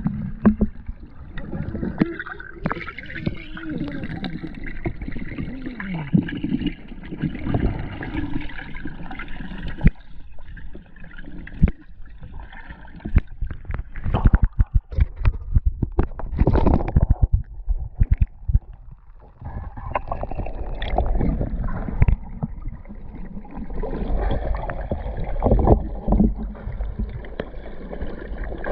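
Muffled underwater sound through an action camera's waterproof housing: gurgling water movement, with a cluster of sharp clicks and knocks about halfway through.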